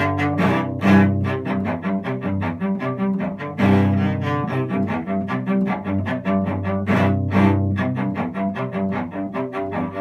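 Solo cello played with the bow: a quick, rhythmic stream of short notes, with louder accented strokes about a second in, near four seconds and near seven seconds.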